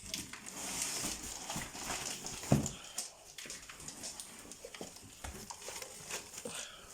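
A dog tearing into and rummaging through a wrapped parcel: plastic and cardboard crinkling and rustling, with scattered small clicks and one louder knock about two and a half seconds in.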